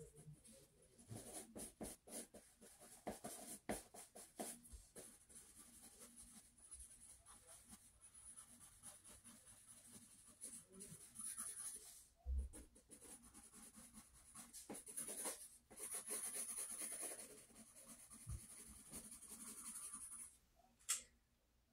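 Drawing strokes scratching on sketchbook paper, in quick uneven runs with short pauses, faint. A single sharp tap near the end.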